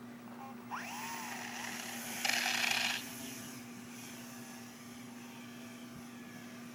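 Small electric motor of an RC plane whining, its pitch gliding up and down about a second in. A brief loud rush of noise lasting under a second follows. A steady low hum runs underneath.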